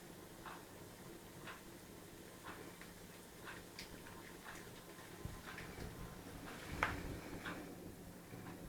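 Faint, regular ticking, about one tick a second, with a slightly louder knock near the end.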